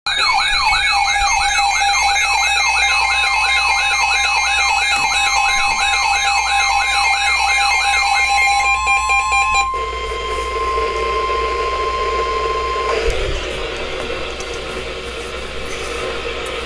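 Emergency alert tones for a severe thunderstorm warning: an electronic warbling alarm sweeping downward about two to three times a second for roughly eight seconds. A steady single-pitch alert tone joins about three seconds in and holds until about thirteen seconds in, leaving a hiss.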